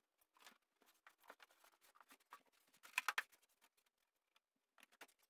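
Faint scraping, rubbing and ticking of a rigid polyiso foam insulation board being pushed up into place against the ceiling beams, with a brief louder cluster of scrapes about three seconds in.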